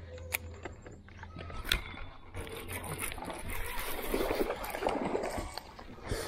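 Water splashing and gurgling beside a boat, with a few sharp clicks. The splashing swells about three seconds in.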